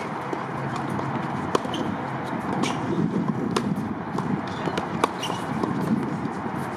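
Tennis ball being struck by rackets in a groundstroke rally on a hard court: a series of sharp pops, one every second or two, over a steady background murmur.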